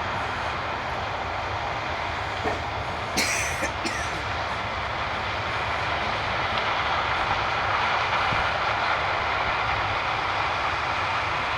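Harvest machinery running steadily, with a few short knocks and a brief sharp clatter about three seconds in.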